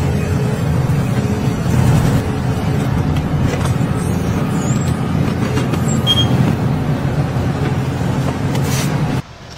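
Shantui hydraulic excavator's diesel engine running steadily under load. It cuts off abruptly near the end.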